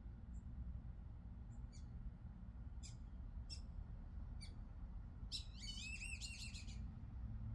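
Small songbirds calling: a few short high chirps about a second apart, then a rapid warbling song phrase about five seconds in. A steady low rumble sits underneath.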